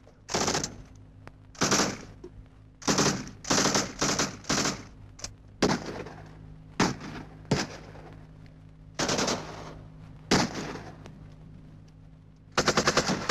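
Machine-gun fire in about a dozen short, sharp bursts at irregular intervals. Near the end a longer burst of rapid, evenly spaced shots begins.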